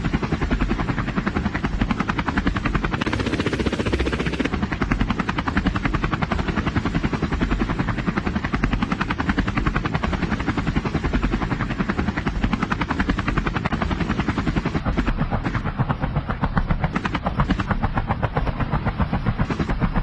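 Helicopter rotor chopping steadily with a rapid, even beat.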